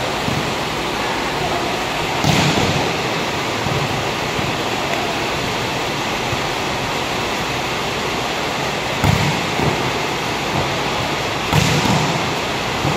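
Volleyballs hit hard in a spiking drill: a sharp smack about two seconds in and two more near the end, echoing in a large hall, over a steady rushing hiss.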